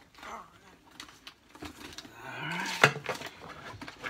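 Light clicks, taps and rustles of a cardboard box and card binder being handled and moved on a table, with a sharper knock about three seconds in.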